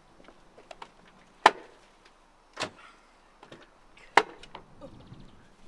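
Three sharp knocks about a second or so apart, with lighter clicks and taps between them.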